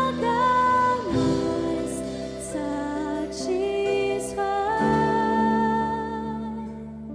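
Worship music: a singer holding long, gliding notes over a sustained keyboard backing in a slow song, easing off near the end.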